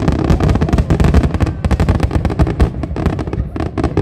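Loud fireworks barrage: a dense, rapid run of crackling bangs, many reports a second overlapping without a break.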